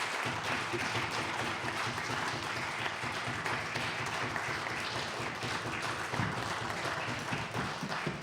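Sustained applause from the members in the legislative chamber, greeting the bill's passage.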